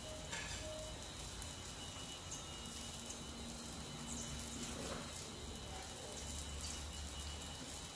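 Broth simmering faintly and steadily in a stainless steel divided pot, with a couple of soft taps.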